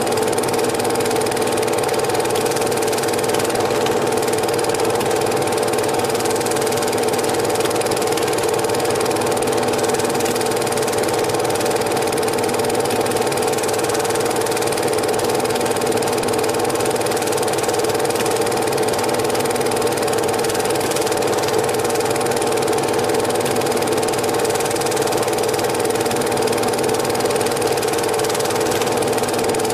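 Cine film projector running with a steady, unchanging mechanical hum.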